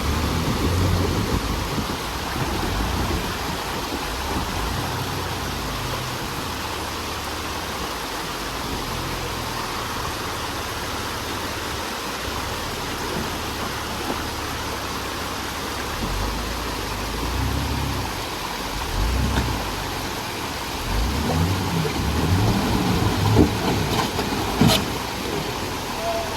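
Off-road Jeep engine revving in bursts under load while rock crawling, over a steady rushing noise. A couple of sharp knocks come near the end.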